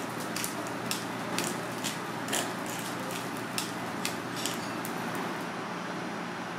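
A series of sharp clicks, about two a second, that stops about four and a half seconds in, over a steady hiss.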